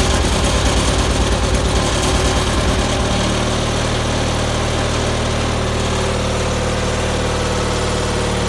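Gravely 816 garden tractor's 16-horsepower engine running just after a cold start, the choke still in use. It runs with an uneven, pulsing beat at first, then about three seconds in settles into a steady idle.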